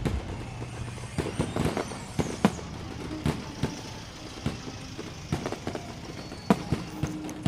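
Fireworks going off in an irregular series of bangs and pops, with a crackling hiss between them.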